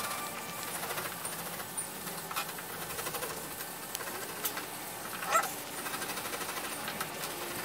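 Garlic cloves rubbed back and forth on a small metal hand grater over a cutting board: a soft, repeated rasping scrape with a few light clicks, and one brief louder sound about five seconds in.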